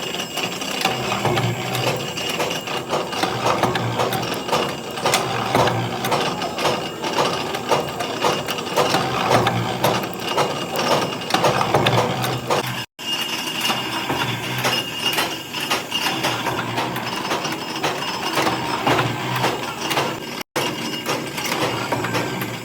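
Workshop machinery running with a steady mechanical clatter of rapid, evenly repeated clicks. The sound cuts out for an instant twice.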